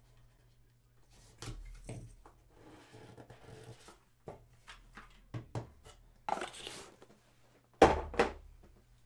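A cardboard trading-card hobby box being handled and opened: scattered soft taps, rustling and a brief sliding scrape, then two sharp knocks near the end, the loudest sounds.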